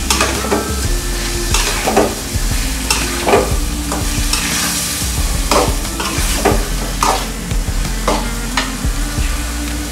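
A metal spatula scrapes and stirs fish pieces through spice paste in a metal karahi, in irregular strokes about one or two a second. Under the strokes the masala sizzles steadily as it fries.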